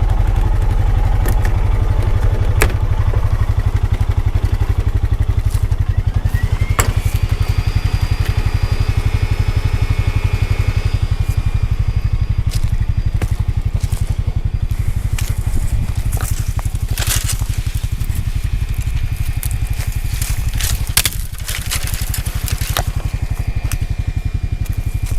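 Honda Pioneer 520 side-by-side's single-cylinder engine running steadily under way, with cracking and crunching of brush and debris under the tyres on a rough logging track. A thin high squeal rises about six seconds in and holds for a few seconds.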